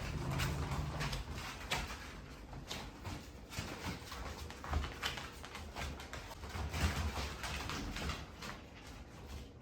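Shiba Inu puppies scampering and playing on a hard floor, with a scatter of quick claw clicks and taps over soft low thumps and scuffling.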